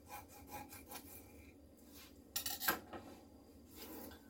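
A sharp kitchen knife scoring a whole fish's skin on a cutting board: a few short, faint scraping strokes, then a louder short clatter a little after two seconds in, and faint rubbing as the fish is handled near the end.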